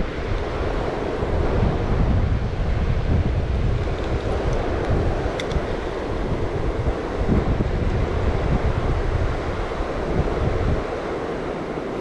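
Wind buffeting the microphone over the steady rush of river current, a continuous rumbling noise with no clear breaks.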